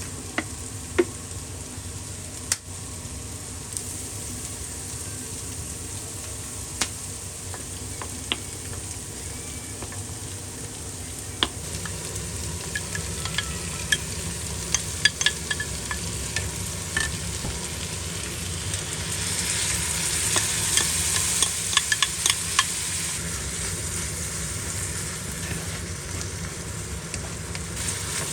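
Food sizzling in a frying pan as it is stirred, with scattered sharp clicks and scrapes of a utensil against the pan. The sizzle grows louder about two-thirds of the way through, with a quick cluster of clicks.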